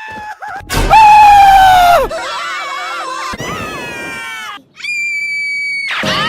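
Cartoon characters' screams spliced back to back: about five different voices in quick succession, each cut off abruptly. The loudest comes about a second in, and after a brief break near the end a high, steady, shrill scream follows.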